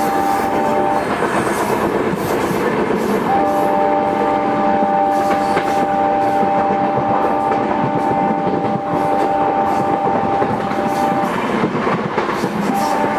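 Diesel locomotive horn (WDM3A) sounding long blasts, a chord of several steady tones. One blast ends about a second in, a long one of about eight seconds follows, and another starts near the end. Under it is the continuous rumble and clatter of the train running on the rails.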